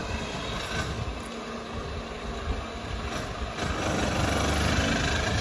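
Ceiling fan running overhead: a steady rush of moving air with a low, uneven rumble as the draught buffets the microphone, growing louder about three and a half seconds in.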